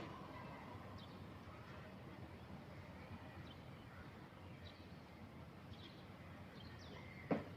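Faint outdoor ambience with scattered short bird chirps, and one sharp knock near the end.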